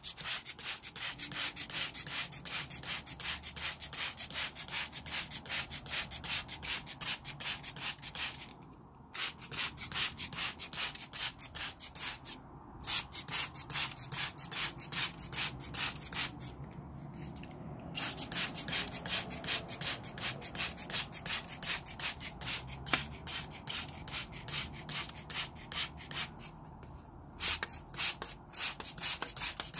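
A sponge scrubbing a plastic basin clean of algae, in quick, even back-and-forth rubbing strokes, a few a second. The scrubbing stops briefly four times.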